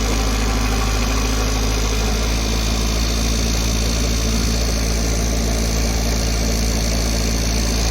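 Diesel engine of a Tata Hitachi floating excavator running steadily with a constant low rumble.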